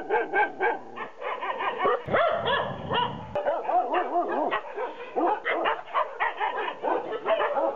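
A pack of dogs barking over one another, with short, rapid barks overlapping without a break.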